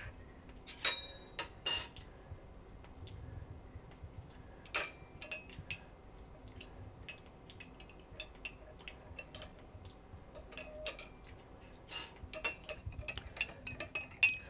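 Scattered light clinks and taps of cutlery against china, irregular, with a few louder clinks about a second in and a cluster around twelve seconds.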